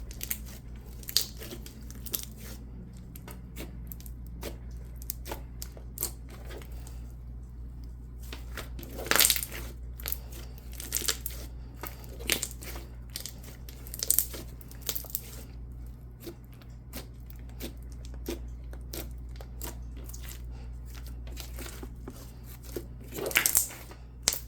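Coated clear slime squeezed and stretched by hand, giving irregular crackling clicks and bubble pops. A few pops are louder, the loudest about nine seconds in and near the end, over a steady low hum.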